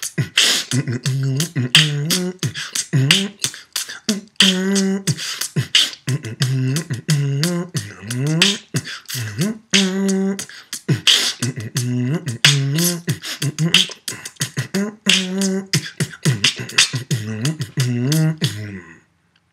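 A man beatboxing: sharp mouth-made drum hits over a hummed bassline whose pitch slides up and down, in a loop that repeats about every five seconds. It stops just before the end.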